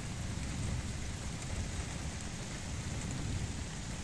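Steady rain falling during a thunderstorm, an even hiss with a low rumble underneath.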